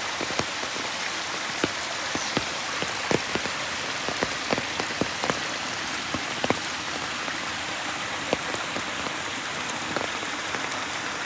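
Steady rain: an even hiss with irregular sharp taps of single drops landing close by.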